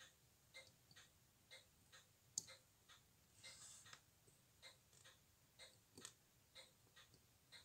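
Faint, even ticking of a timepiece, about two ticks a second. A single sharper click comes a little over two seconds in, followed by a brief soft rustle at about three and a half seconds.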